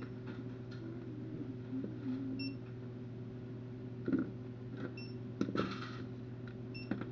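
Checkout barcode scanner beeping three times, a couple of seconds apart, over a steady electrical hum, with a short rustle of handled packaging a little after the middle.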